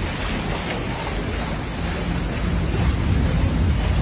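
Steady rushing noise of heavy typhoon rain and running floodwater, with wind rumbling on the microphone.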